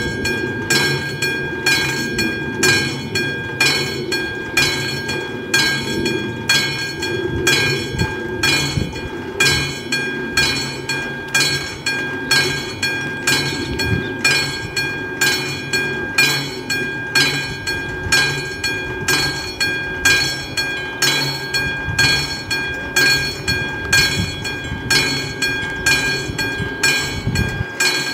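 Electronic warning bell of a Czech level crossing, ringing in a steady rhythm of about three strikes every two seconds, over a low uneven rumble. It is the crossing's signal that a train is approaching and the road is closed.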